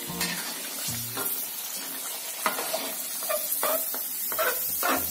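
Jengkol (dogfruit) sizzling in hot frying oil in a wok, now cooked through. A spatula stirs them and scrapes them up the side of the wok, with short scrapes and clinks over the steady sizzle.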